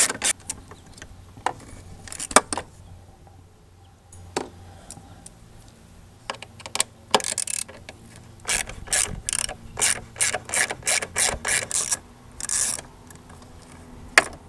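Small hand ratchet clicking in runs as it loosens the tail lamp's T-25 Torx screws, about four clicks a second, the longest run lasting about three seconds past the middle.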